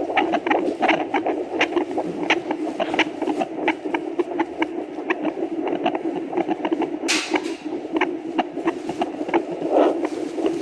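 Heartbeat picked up by a doppler probe: a steady whooshing hum with rapid, regular beats, about two to three a second. A louder scratchy knock comes about seven seconds in.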